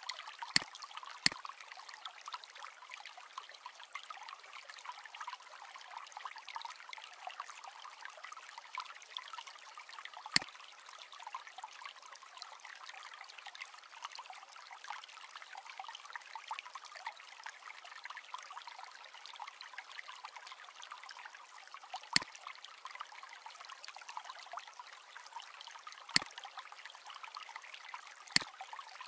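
Computer mouse clicking six times at irregular intervals, two close together near the start and three spaced through the last third, over a steady rushing hiss.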